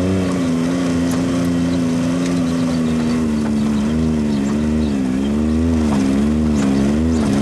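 Can-Am Maverick X RC Turbo RR side-by-side's turbocharged three-cylinder engine running under way, heard from the cockpit. Its pitch holds steady for about three seconds, then rises and falls several times, roughly once a second, as the revs come up and drop back.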